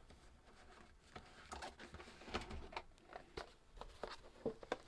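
Faint, irregular light clicks, taps and rustling of hands handling and sorting through small parts.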